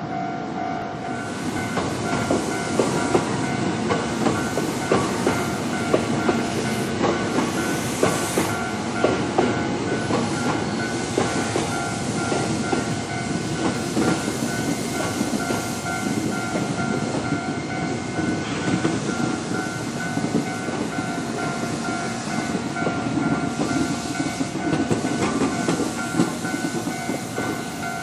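Hankyu electric commuter train passing close by at speed, its wheels clattering in a rapid rattle over the rail joints. A level-crossing warning bell rings steadily behind it.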